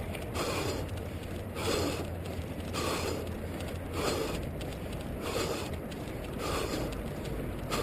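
A runner's rhythmic breathing and footfalls heard through a head-mounted GoPro Hero 2 in its housing, pulsing about once every 0.6 s over a low rumble.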